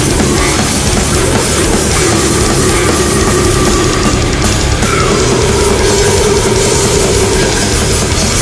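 Death doom metal: heavily distorted guitars holding long notes over drums.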